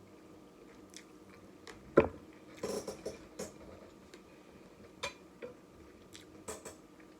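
Close-up eating sounds: a sharp tableware clink about two seconds in, then wet chewing and a few scattered light clicks.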